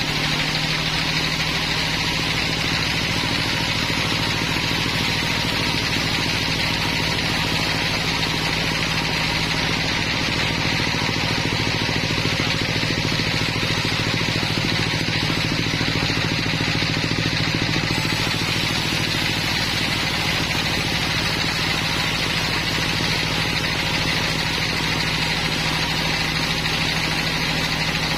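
Sawmill machinery running steadily: a constant low hum with a higher steady tone above it, unchanging throughout.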